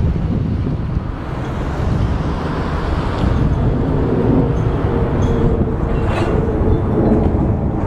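Steady jet noise from a Boeing 747's four turbofan engines as it flies overhead, mixed with wind buffeting the microphone.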